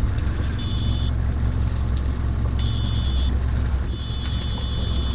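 Boat motor idling with a steady low hum. Over it, a high electronic beeping comes in four stretches of rapid pulses.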